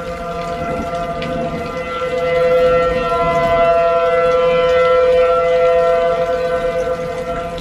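Outdoor civil defense warning siren sounding a steady, chord-like tone to warn of severe weather. It grows louder about two seconds in and eases off near the end.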